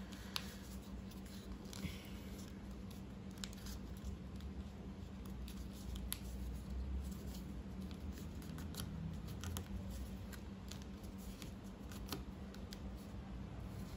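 Thick, many-layered A4 paper being folded and creased by hand: faint scattered crackles and rustles as fingers press the folds down.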